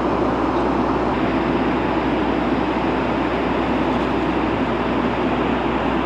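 Steady cabin noise of a Boeing 757-200 in cruise: an even rush of airflow and engine noise, heard inside the cabin.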